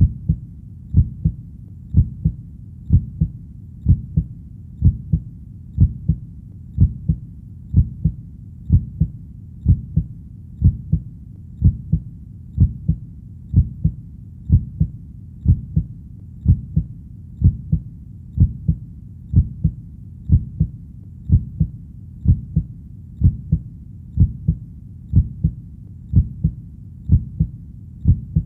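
Heartbeat: a steady double thump (lub-dub), low in pitch, repeating evenly at about one beat a second.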